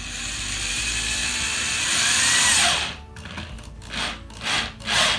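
Corded electric drill driving a wood screw through a hinge bracket. The motor runs for about three seconds and drops in pitch as it stops, then follows with four short bursts. The screws are deliberately left short of fully seated.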